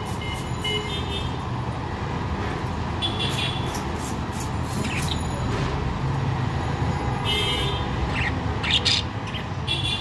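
Budgerigars chirping in short, high calls every second or two over a steady low rumble.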